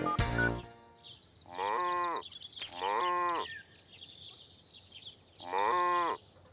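A cartoon farm animal's call, three times, each about half a second long and bending in pitch. A short tinkly jingle is ending at the very start.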